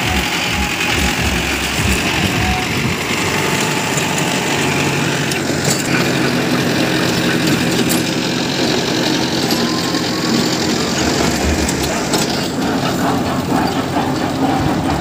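Mahindra 605 tractor's diesel engine running steadily under load, driving a rotavator (rotary tiller) whose blades churn through the soil.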